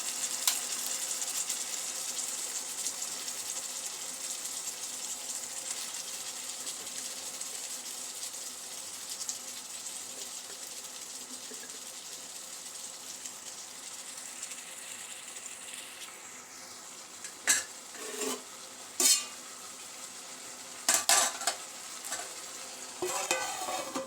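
Meat, tomatoes and drumstick pods sizzling as they fry in a kadai, the hiss slowly dying down. Near the end, a spoon knocks against the pan several times while stirring.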